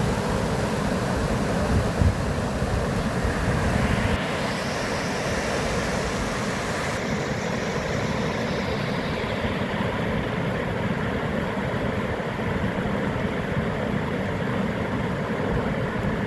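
Flowing water rushing steadily. About four seconds in, the deep rumble thins, and the hiss then grows duller.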